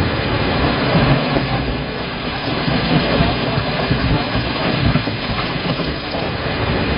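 Continuous rumble of a landslide: rock and earth sliding down a slope in a dense, steady noise with small swells and no separate impacts.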